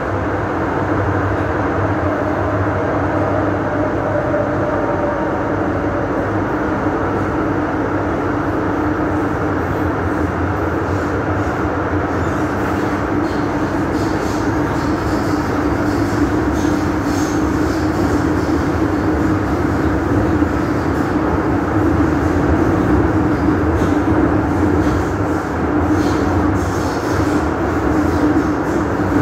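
Hong Kong MTR Island Line train running between stations, heard from inside the car: a steady rumble of wheels on the track. A faint motor whine comes through in the first few seconds, and scattered clicks come in the second half.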